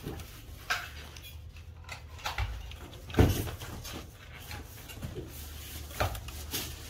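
Scattered clicks and knocks of a plastic-and-metal electric iron body and a screwdriver being handled during assembly, the loudest a knock about three seconds in, over a low steady hum.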